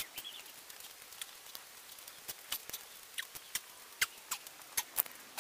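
Faint, irregular clicks and taps from a person doing push-ups on foam floor mats, coming more often in the second half.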